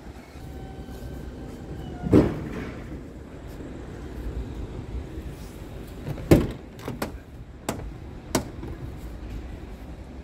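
Thumps and clicks of a Scania R truck's cab door and panels being handled: a heavy thump about two seconds in, a loud sharp knock about six seconds in, then a few lighter clicks, over a low steady rumble.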